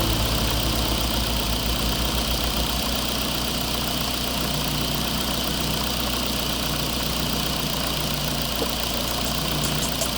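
Steady, diesel-like engine idle from a radio-controlled construction truck, a low even throb with light clicking near the end.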